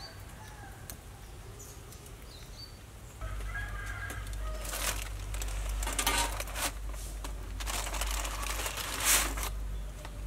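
Aluminium foil packet crinkling as it is moved with tongs and by hand on a wire grill rack, in several rustling bursts, the loudest near the end. A chicken calls briefly about a third of the way in.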